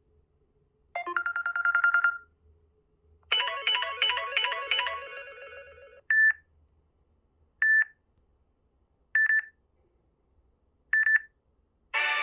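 Samsung Galaxy A5 (2016) loudspeaker playing its built-in alert sounds: a short rapid run of tones, then a chiming melodic phrase that fades out, then four short single beeps about a second and a half apart.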